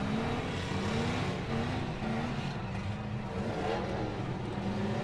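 Several stock-class demolition derby cars' engines running and revving, their pitch rising and falling again and again as they manoeuvre.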